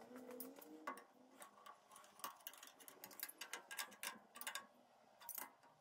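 Faint, irregular metallic clicks and ticks as a spanner works the brass fitting of a flexible coolant-hose tap on a lathe saddle.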